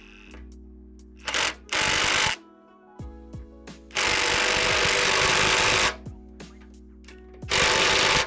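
Ryobi cordless impact tool hammering sway-bar bracket bolts down through a socket and extension. It runs in four bursts: a short blip, a brief run, a long run of about two seconds in the middle, and another brief run near the end. Steady background music plays underneath.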